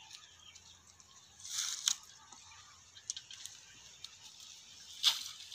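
Dry twigs rustling and crackling as a bundle of thin sticks is handled, with a few light clicks and one sharp crackle near the end as the bundle is gathered up.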